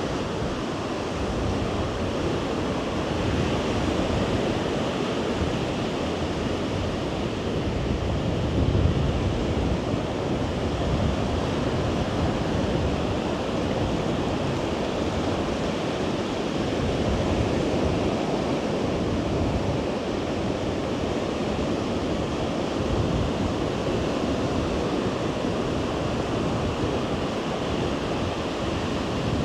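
Ocean surf washing steadily onto the beach, swelling and easing, with wind buffeting the microphone.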